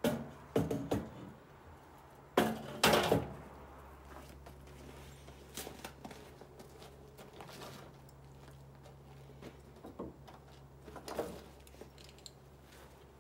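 Aluminum loading ramp clanking against an aluminum hitch-mounted cargo carrier as it is fitted and set in place: a cluster of loud metal knocks in the first three seconds, then a few lighter knocks.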